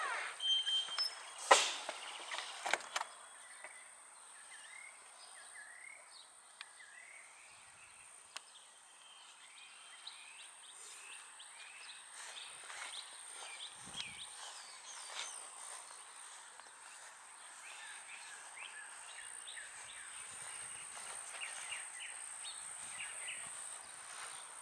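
A door is handled and opened with a few sharp knocks and clicks in the first three seconds, then outdoor ambience takes over: birds chirping repeatedly over a thin, steady high whine.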